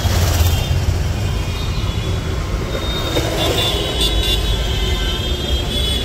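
Busy city street traffic: a steady rumble of motorbikes and cars, with a vehicle horn tooting briefly about three seconds in.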